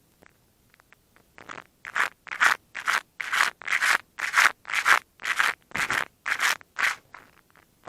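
150-grit sandpaper rubbed back and forth along the leading edge of a model aircraft's horizontal stabiliser, shaping it. The strokes start a little over a second in and come at about two a second.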